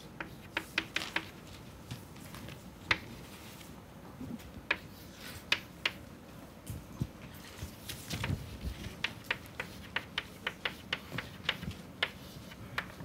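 Chalk writing on a blackboard: irregular sharp taps and short scratches as symbols are written, a few a second.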